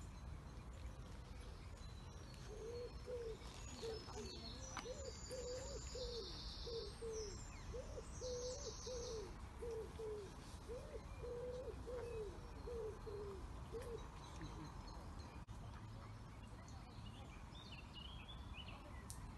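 Birds calling: a long run of short, low cooing notes, about two a second, that stops a few seconds before the end, with brief high-pitched chirps from another bird partway through.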